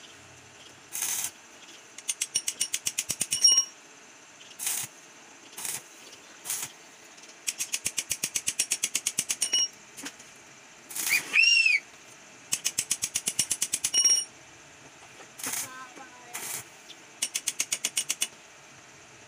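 Rapid metallic tapping, about ten taps a second in runs of one to two seconds, of a hand tool knocking slag off a small stick-welded part. Between the runs come short hissing, crackling bursts of the stick-welding arc.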